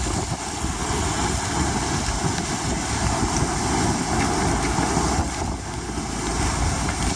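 Storm wind blasting the microphone and rough sea breaking and splashing against a stone quay: a loud, steady wash of noise with a heavy, gusting rumble underneath.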